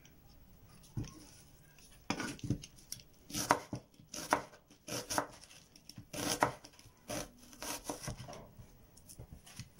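Kitchen knife slicing a white onion into half-moons on a wooden cutting board: a series of irregular knife strikes against the board, the first about a second in, then one every half second to a second.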